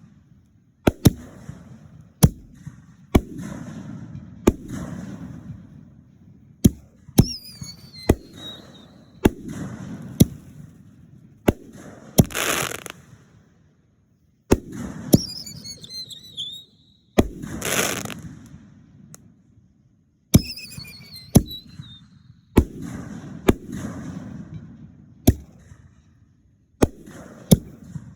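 Aerial fireworks display: a rapid run of sharp bangs from bursting shells, many trailed by a low echoing rumble. Some bursts hiss for about a second, and several whistles glide downward in pitch.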